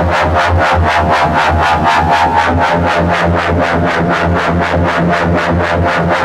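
Background electronic music: synthesizer chords held over a steady, fast pulsing beat.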